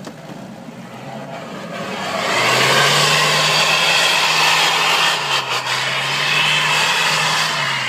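Toyota Land Cruiser 4x4 engine revving hard under load as it climbs a snowy slope, with the rushing hiss of its wheels spinning and throwing snow. The sound swells about two seconds in, holds high with a brief dip around the middle, and eases off near the end.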